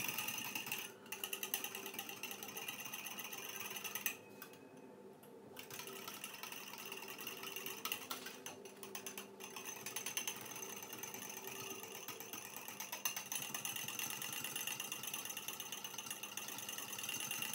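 A metal fork beating instant coffee, sugar and water rapidly against a small ceramic bowl, whipping dalgona coffee by hand. It makes a fast, steady clicking and scraping, with a pause of a second or so about four seconds in and brief breaks near the start and around nine seconds.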